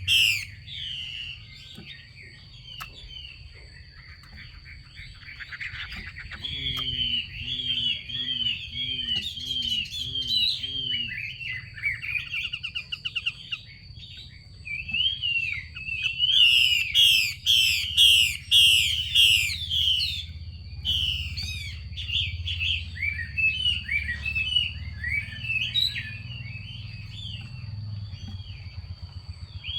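Female Chinese hwamei calling: runs of quick chirping notes, with a louder stretch of fast, harsh notes in the middle. This is the call keepers play to stir male hwameis into singing. A thin steady high tone runs underneath.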